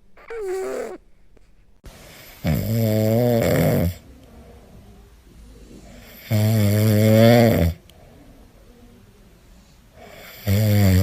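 Cat snoring in its sleep: three long, low pitched snores about four seconds apart, after a short falling note near the start.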